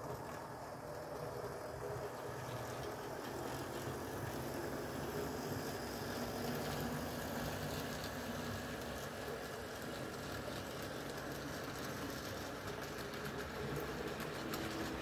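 Model freight train running along the layout track: a steady rumble of the locomotive and cars rolling on the rails, with faint clicks toward the end.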